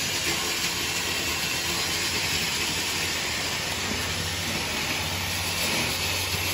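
Steady hiss and drone of running workshop machinery, with sandpaper rubbing over carved wood close by.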